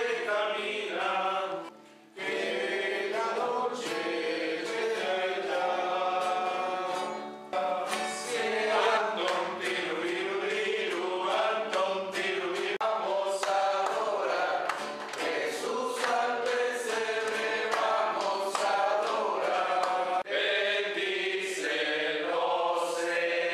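A group of voices singing a Spanish-language Christian hymn, with a short break about two seconds in.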